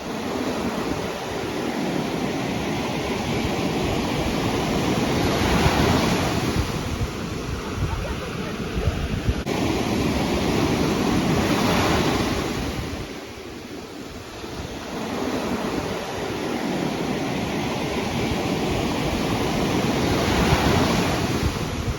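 Ocean surf breaking on a sandy beach, the wash swelling and easing every several seconds, with wind rumbling on the microphone.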